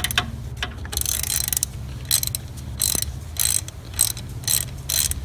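Hand ratchet with a 22 mm socket clicking in short runs, one run per back-stroke, roughly every half second, as it snugs a brass oil pressure sender adapter into an LS1 V8 block.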